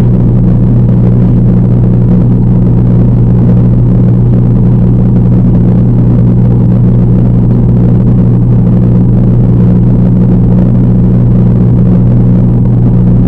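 Loud, steady low hum of the aquarium's pump equipment, picked up underwater through a waterproof camera's microphone.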